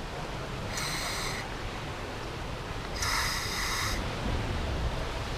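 Hollis 200LX scuba regulator on a DCX first stage, giving two short buzzing, clicking bursts as air is drawn through it, the first about a second in and a longer one about three seconds in. The clicking was later traced to the first stage's high-pressure seat.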